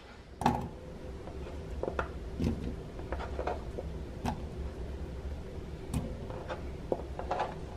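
Scattered light knocks of cut red potato chunks being dropped into an enamel pot and handled on a cutting board, about eight in all, the loudest about half a second in, over a low steady hum.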